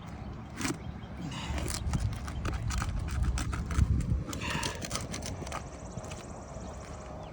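Asphalt roof shingles being worked loose with a tool pushed under them in a side-to-side motion: irregular clicking, knocking and scraping as the shingles' seal breaks.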